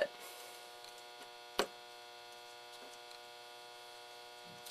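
Steady electrical mains hum, with one sharp click about one and a half seconds in and a few faint ticks as header pins are fitted onto a circuit board by hand.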